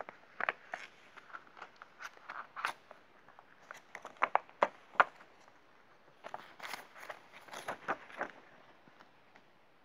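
Clear plastic sleeve crinkling and old paper banknotes rustling as a stack is handled and slid out, in irregular crackly bursts. The sharpest crackles come about four to five seconds in, and the sound dies away near the end.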